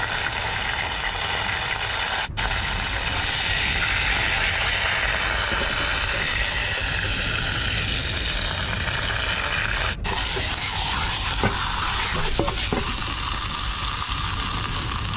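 Food sizzling in a hot pan on a stove, a steady frying hiss, with a few light clinks near the end.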